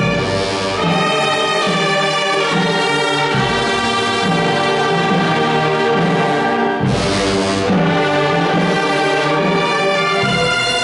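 Wind band of clarinets, saxophones and brass playing a march in held chords, with a crash at the start and another about seven seconds in.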